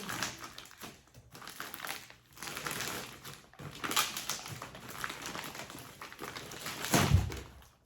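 Tightly wrapped package being pulled and torn open, rustling and crinkling in irregular bursts, with a heavier thump about seven seconds in.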